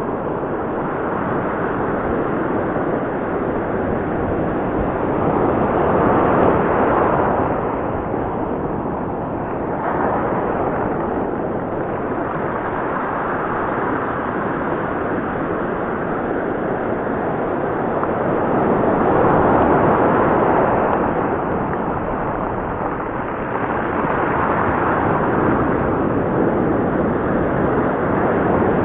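Ocean surf breaking and washing up the beach close by: a continuous rushing roar that swells louder a few times as bigger waves break and run up the shore.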